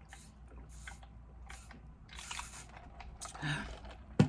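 Close-up crunching and chewing of crispy air-fried shrimp tempura, a crisp crunch about every half to three-quarters of a second. A brief voiced hum comes about three and a half seconds in, and a sharp click near the end is the loudest sound.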